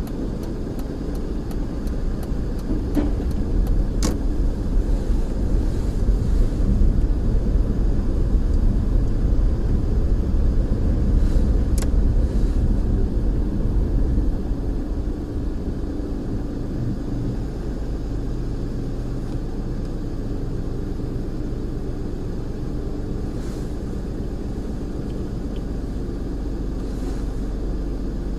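Car driving at low speed: a steady low rumble of engine and road noise that grows louder for several seconds, then settles. A couple of sharp clicks sound over it.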